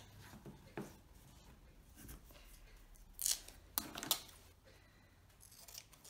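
Scissors snipping through a strip of black adhesive tape: three quick cuts about three to four seconds in, with a few faint handling clicks before them.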